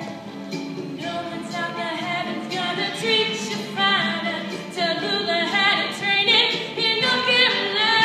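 A group of voices singing together, choir-like, growing louder in the second half.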